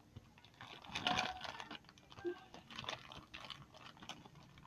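Hands kneading and stretching slime: faint, irregular sticky clicks and crackles.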